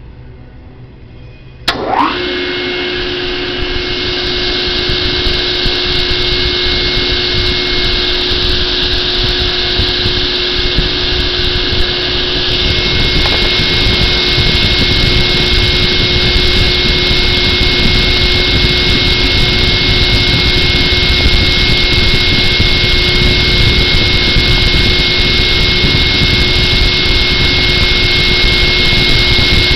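Oliver 88D 16-inch table saw switched on about two seconds in. It spins up with a brief rising whine, then runs steadily and loudly with a constant hum and a high whine.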